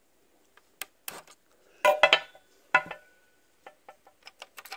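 Clicks and clinks of a metal screwdriver prying at a ribbon-cable connector on a laptop motherboard. The loudest clatter comes about two seconds in, another a second later, then a run of small quick ticks.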